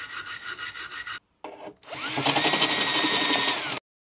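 A stiff brush scrubbing rust off a row of steel screw heads, about four strokes a second. After a short break, a small power tool spins up, runs steadily for under two seconds, then winds down.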